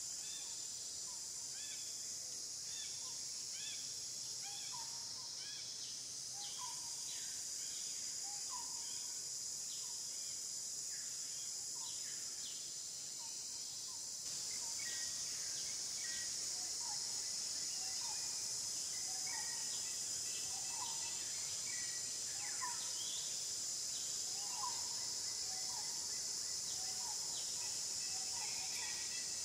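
Outdoor natural ambience: a steady high-pitched insect drone with many short chirping calls over it, the drone growing louder about halfway through.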